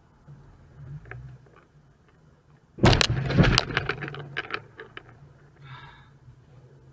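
Low-speed car collision heard from inside the car: a sudden bang about three seconds in, followed by a second or two of cracking and crunching that dies away.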